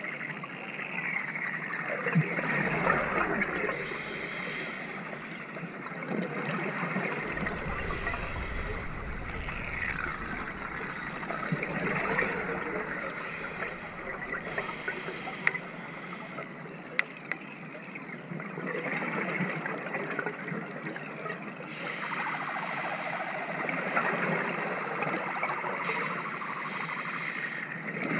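Diver breathing underwater through a regulator: a short high hiss with each inhalation, about six times, alternating with gurgling rushes of exhaled bubbles.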